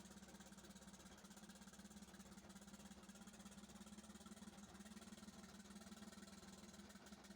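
Engine idling steadily and faintly, with a fast, even rattle.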